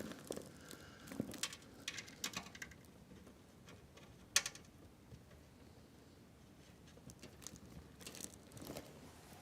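Faint handling noises while a power supply is fitted and screwed into a PC case: scattered small clicks and rustles, with one sharper click about four seconds in.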